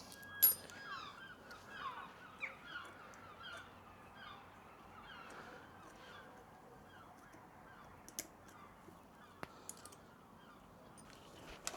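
Faint bird calls: a run of short repeated calls that die away about six seconds in. A few sharp clicks come later.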